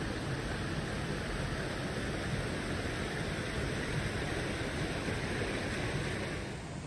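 Steady rushing noise outdoors in a redwood forest, even and without distinct events, easing slightly near the end.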